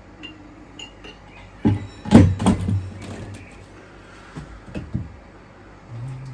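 Several knocks and clunks of a beer bottle and a Fizzics beer dispenser being handled, the loudest a quick cluster about two seconds in. Near the end a steady low hum starts as the dispenser runs.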